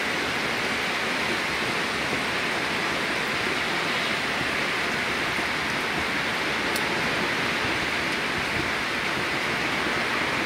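Steady rain falling on a city street and buildings at night, a dense even hiss.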